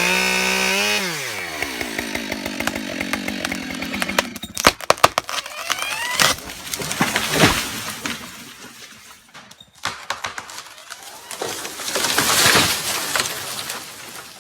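Husqvarna 572 XP two-stroke chainsaw cutting at full throttle, then let off and winding down to idle about a second in. A few seconds later comes a run of sharp cracks as the tree's hinge wood breaks, then the crash of the tree coming down through branches and hitting the ground.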